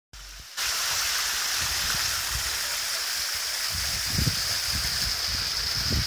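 Water spilling over sandstone rocks from a garden pond in a small artificial waterfall, a steady rushing splash.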